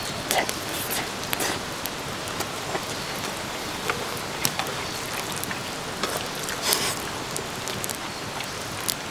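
Wood fire crackling in an open metal fire pit: a steady hiss with frequent sharp pops. A short slurp of spaghetti comes just after the start.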